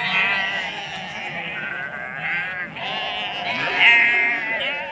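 A flock of sheep bleating, several quavering calls overlapping one after another, the loudest about four seconds in.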